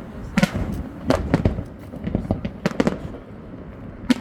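Fireworks going off: an irregular run of sharp bangs and cracks, some in quick pairs and clusters, over a steady low rumble.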